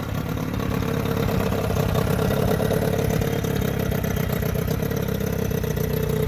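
Johnson 9.9 hp two-stroke outboard motor running steadily, just after starting; its carburetor freshly cleaned, it runs smoothly.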